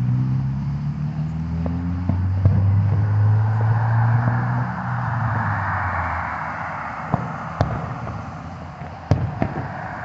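A car's engine running close by, then tyre noise swelling as the car goes past. Over it come sharp bangs from an aerial fireworks display: one about two and a half seconds in and a few more near the end.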